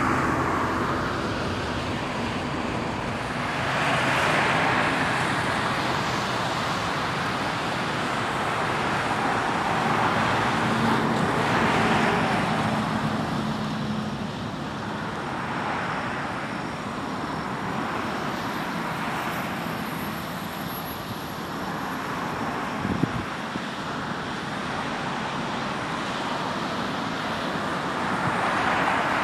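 A steady roar of distant engine noise, swelling and fading several times, with one sharp click about two-thirds of the way through.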